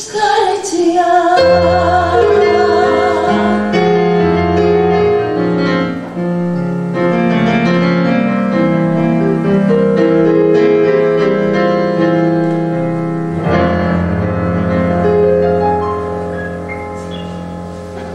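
A woman's voice ends a sung phrase on a wavering note, then an electronic keyboard plays an instrumental passage of sustained piano-style chords over low bass notes, with a chord change about two-thirds of the way through and a gradual fade near the end.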